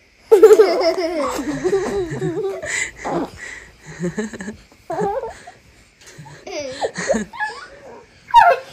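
A toddler laughing: one long peal of high, wavering laughter at the start, then shorter bursts of giggles.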